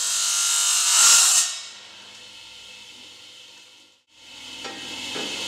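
Battipav VIP 290 tile saw's blade cutting through a tile: a loud high grinding hiss that peaks about a second in, then drops to a quieter steady whir. It breaks off abruptly at about four seconds and builds again near the end.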